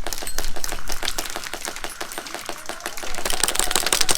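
Airsoft guns firing in rapid bursts: a fast clatter of sharp clicks that thins out midway and picks up again near the end.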